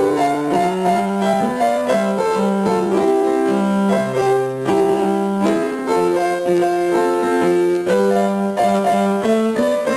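Instrumental background music led by a piano-like keyboard, playing a brisk melody of short, evenly paced notes over a lower line.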